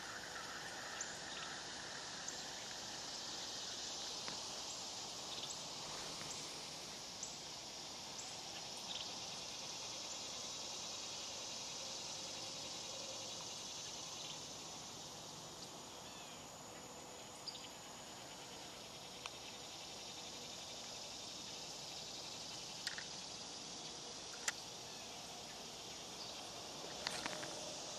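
Summer outdoor ambience: a steady chorus of insects chirring, with a few short sharp clicks in the second half.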